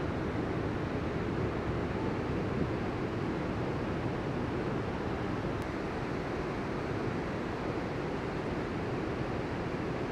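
Ocean surf breaking and washing ashore: a steady, continuous rushing.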